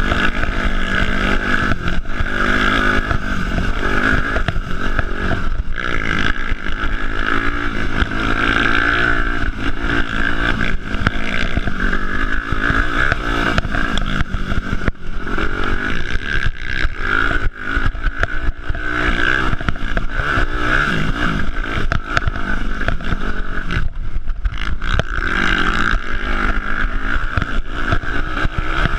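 Yamaha four-stroke dirt bike engine heard from on board while riding a dirt trail, revving up and easing off again and again as the throttle is worked, its pitch rising and falling. The throttle briefly closes about two-thirds of the way through and again a few seconds later.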